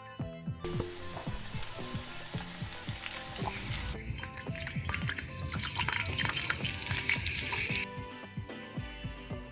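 Omelet frying in a hot pan: a steady sizzle that starts under a second in and cuts off suddenly near the end. Background music with plucked notes plays underneath.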